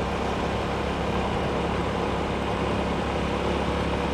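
Honda CT125 small single-cylinder four-stroke engine running steadily on the move, mixed with a steady rush of wind and road noise.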